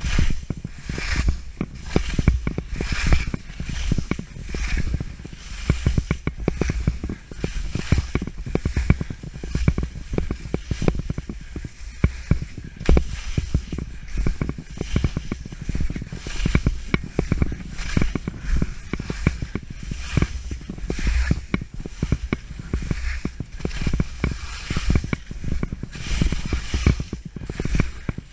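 Skis scraping and carving through bumpy, soft snow in rhythmic turns, a swell of hiss about once a second, with knocks from the skis and poles and wind rumbling on the microphone of an action camera worn by the skier.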